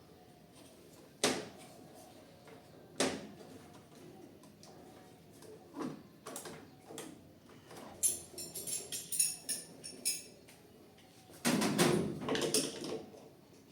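Knocks, metallic jingling and rattling as a tipped-over washing machine is handled and its underside worked on: two sharp knocks early, a jangle in the middle, and a louder clatter near the end.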